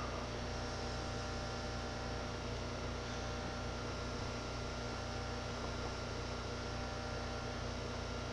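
Steady electrical mains hum with a low hiss, unchanging throughout; no breath or vaping sound stands out.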